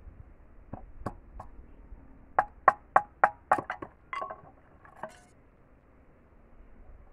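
Machete blade striking bamboo as it is chopped and split into skewer sticks. A few light knocks about a second in are followed by a quick run of about eight sharp strikes, roughly four a second, and then a couple of weaker knocks.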